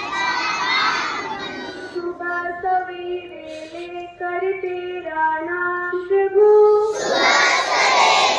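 A large group of schoolchildren singing a prayer together. About two seconds in the group drops out and one clear voice sings a stepwise melody alone for about five seconds. Near the end the whole group comes back in loudly.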